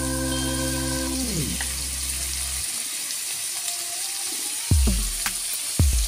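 Raw pork frying in hot oil in a wok, a steady sizzle. Background music fades out about a second in, and a new beat with deep drum hits starts near the end.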